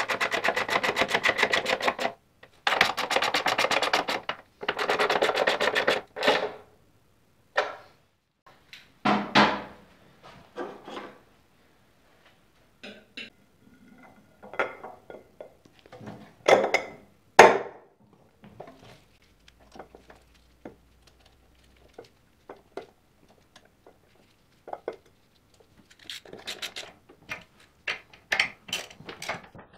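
Hand tools on the rear axle and brake parts of a 1978 Honda ATC 90. A socket ratchet clicks rapidly in three long runs, then come scattered metal clinks and taps as parts are fitted by hand, and rapid ratchet clicking again near the end.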